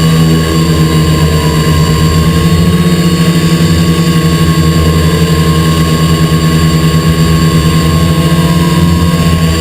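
XP2 quadcopter's electric motors and propellers running right under the camera: a loud, steady, multi-tone hum whose pitch wavers slightly as the motors adjust.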